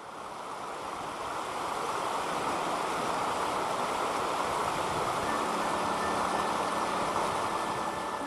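Steady rushing of flowing water, swelling in over the first couple of seconds and then holding even, with a faint low hum joining about five seconds in.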